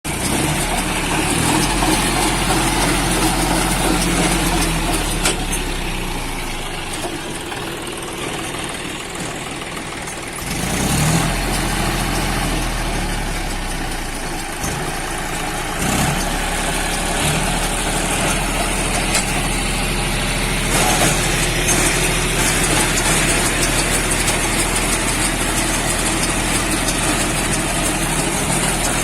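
Engine of a round straw baler outfit running steadily as the machine works, with a few knocks and clatters from the baler. The engine note drops a little around eight seconds in and picks up again about eleven seconds in.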